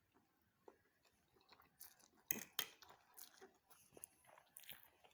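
Faint close chewing and mouth sounds of a person eating noodles, with scattered small clicks and two sharper clicks about halfway through.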